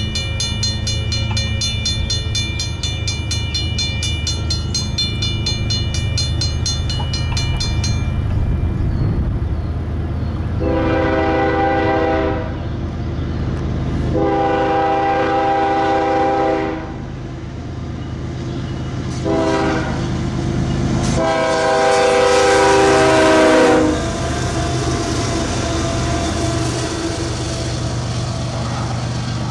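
Canadian Pacific freight locomotive horn sounding the grade-crossing signal: long, long, short, long, the last blast loudest as the lead unit comes close, over the steady rumble of the train's diesel engines. A rapid, evenly repeating ringing sounds for the first eight seconds.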